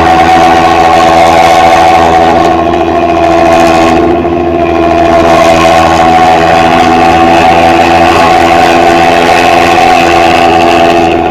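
Bus engine running through a modified 'ngorok' exhaust, a loud, steady snoring note made of many stacked tones. It eases off slightly about three seconds in, then picks back up.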